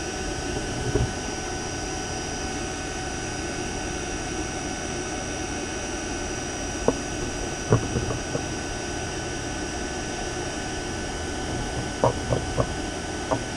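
Steady drone of running machinery with several steady tones, broken by a few sharp knocks in the middle and a quick cluster of them near the end.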